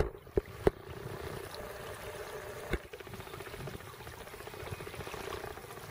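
Shallow river water flowing and rippling steadily, with a few sharp clicks in the first second and another about three seconds in.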